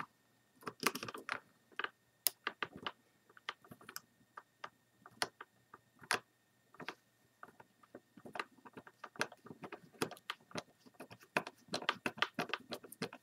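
Small scattered clicks and ticks of a 00 Phillips precision screwdriver working a tiny screw out of a webcam's plastic housing, coming quicker and closer together over the last few seconds.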